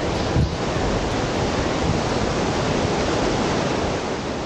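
Steady rush of wind on the microphone, with gusty low buffeting, easing slightly near the end.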